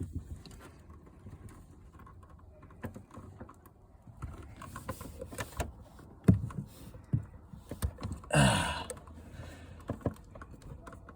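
Scattered small clicks and knocks from handling gear, with one louder knock about six seconds in and a brief voice-like sound a couple of seconds later.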